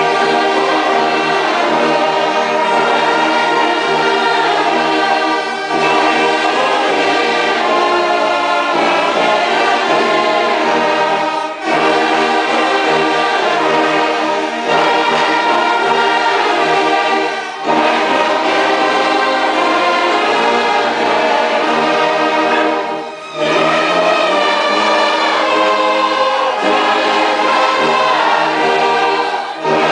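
A church orchestra of brass and strings, trombone among them, plays a hymn in sustained phrases. Each phrase is separated by a brief breath-pause about every six seconds.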